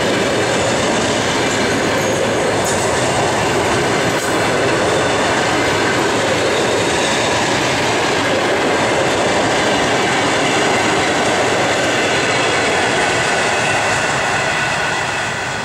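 Passenger coaches of an express train rolling past close by: a steady loud rumble and rattle of wheels on the rails, easing off near the end as the last coach goes by.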